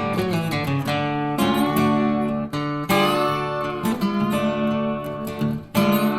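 Background music: acoustic guitar strummed and plucked in chords.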